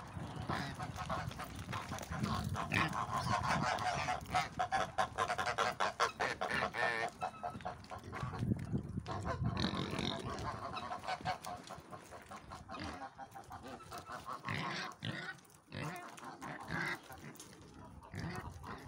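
Farm animals calling, mostly long runs of rapid pig-like grunting and squealing, loudest in the first half and fading off toward the end.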